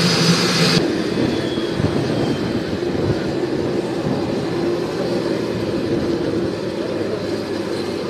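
Business jet's engines whining and hissing as it taxis, cut off abruptly under a second in. A steady, duller rumbling background noise follows.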